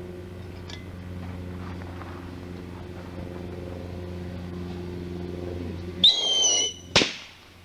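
A steady low hum, then about six seconds in a whistling firecracker shrieks with a high piercing whistle for under a second, followed about a second later by one sharp firecracker bang.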